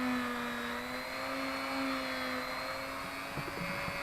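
Small electric rotary tool running at speed, spinning a felt polishing wheel charged with GOI paste against the metal line guide of a baitcasting reel's levelwind. A steady whine whose pitch wavers slightly as the wheel is pressed on.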